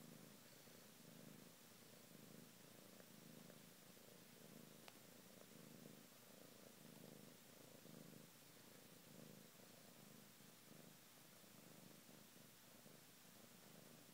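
Domestic tabby cat purring close to the microphone, a faint steady purr that swells and eases about once a second with its breathing. It is the purr of a cat seeking attention.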